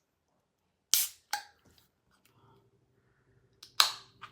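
A sugar-free cream soda being opened, with sharp snaps and short hisses: two quick snaps about a second in, then a louder snap with a brief hiss near the end.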